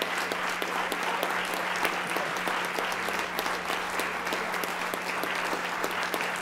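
Large audience clapping, a steady dense patter of many hands.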